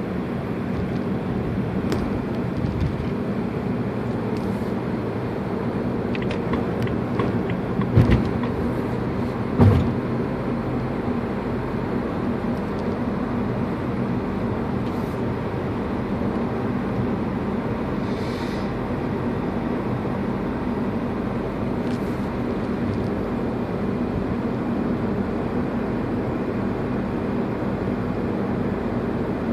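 Steady car engine hum and road noise heard from inside the car's cabin in traffic, with two short thumps about eight and ten seconds in.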